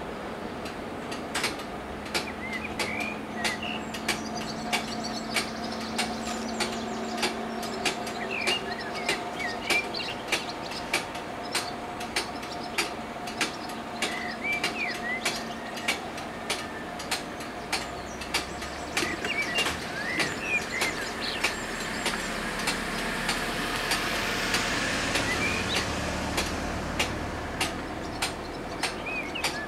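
Electric bells of an Italian FS 64 level crossing striking steadily about twice a second, the warning that rings while the barriers are rising. Birds chirp throughout, and a vehicle passes, loudest near the end.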